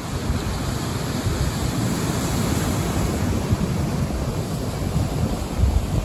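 Ocean surf breaking and washing over a rocky shoreline, with gusty wind buffeting the microphone.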